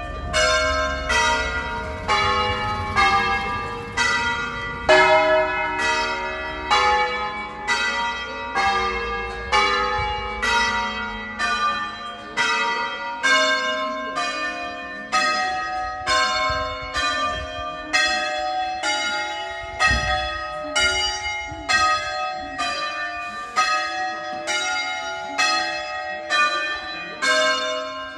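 A peal of nine church bells tuned in E-flat, rung by hand by a team of ringers as a Veronese-style concerto. Single strokes of different bells follow one another in a steady melodic sequence, about one or two a second, and each keeps ringing under the next.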